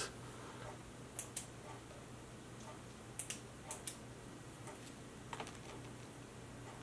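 A few light, scattered clicks and taps of small parts and tools being handled on a workbench, over a faint steady hum.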